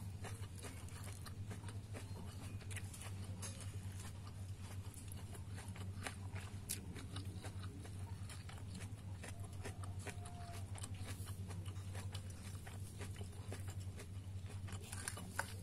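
A person eating by hand, close to the microphone: many small irregular clicks of chewing and of fingers handling food on the plate, over a steady low hum.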